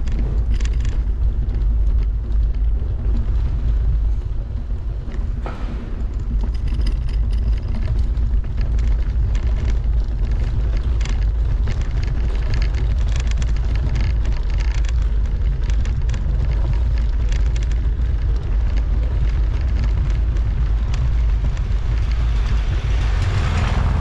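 Bicycle rolling over cobblestones, picked up by a camera mounted on the bike: a loud, steady low rumble with constant rattling clicks from the tyres and frame jolting on the stones.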